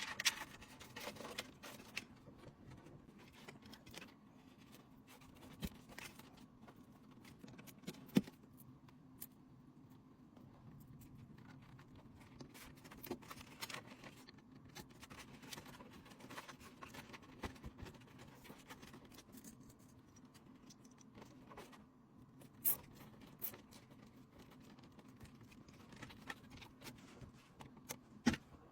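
Scattered small clicks, taps and scrapes of PC components being handled during assembly, over a faint steady hum; the sharpest click comes about eight seconds in.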